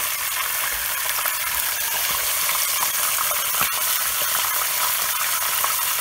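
Whole rohu fish head frying in very hot oil: a steady, dense crackling sizzle, with one sharper click a little past halfway.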